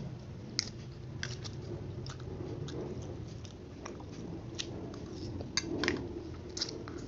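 Close-up mouth sounds of eating fried instant noodles: chewing and slurping, with irregular wet smacks and clicks, thickest about six seconds in as a forkful of noodles is sucked in.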